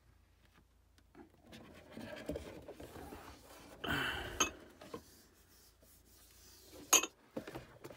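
A large folded cardboard game board being opened out and laid flat: cardboard panels sliding and rubbing against each other and the table, swelling about four seconds in, with a sharp tap near the end.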